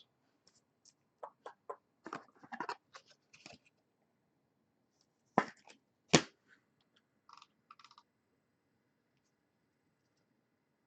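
Baseball trading cards and pack wrappers handled by hand: scattered light rustles and crinkles, then two sharp clicks a little past the middle and a few soft scrapes after.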